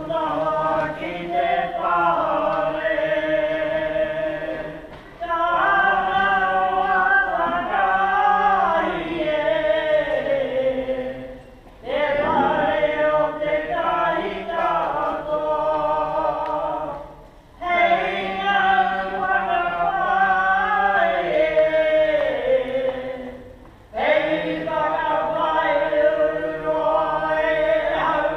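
Unaccompanied chanted singing by an elderly Māori woman's voice, in long held phrases of about five to six seconds each, broken by short pauses for breath.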